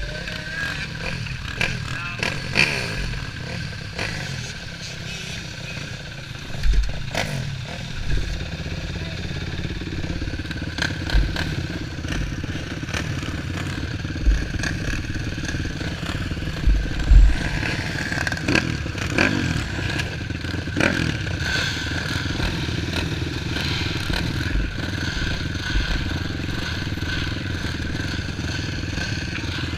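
Engine of a racing vehicle running steadily, with scattered deep thumps and knocks throughout.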